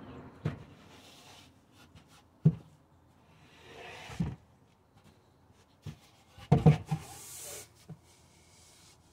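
Tesla Model Y folding parcel shelf being slid and pushed by hand: a string of dull knocks and clunks, the loudest about two and a half seconds in and a double clunk near six and a half seconds, with brief rubbing and sliding sounds between them.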